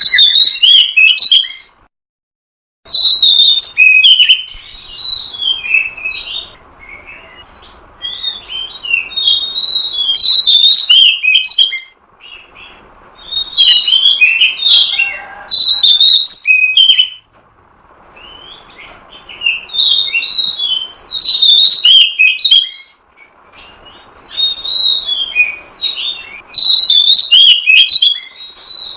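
Oriental magpie-robin (kacer) song: repeated phrases of quick, varied whistles and chirps, each a few seconds long with short pauses between, over a faint steady hiss. The song drops out to dead silence for about a second, about two seconds in. This is a lure call, played to draw wild kacer in for trapping.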